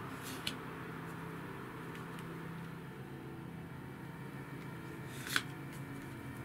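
Tarot cards being handled: a brief card swish about half a second in and a sharper card slap just after five seconds in, with a few faint ticks, over a low steady hum.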